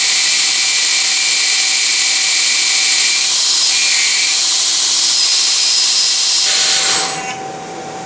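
Electric motor fed from a frequency inverter, giving off a loud, high-pitched whistling hiss that cuts off about seven seconds in, leaving a fainter steady tone. The owner suspects a fault in the motor itself, which was recently rebuilt.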